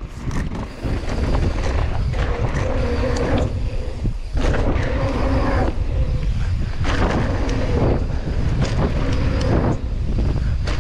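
Wind buffeting the mountain bike rider's action-camera microphone during a fast descent on a dirt jump trail, over the rumble of knobby tyres on hard-packed dirt. Frequent clicks and rattles from the bike run through the noise.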